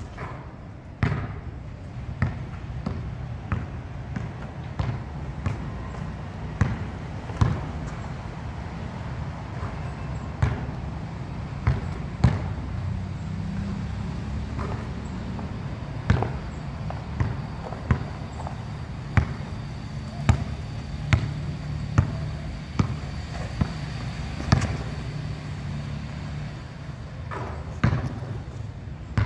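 A basketball bouncing on a hard outdoor court and striking the backboard and rim during shooting practice: sharp single impacts at irregular intervals of one to two seconds, over a steady low hum.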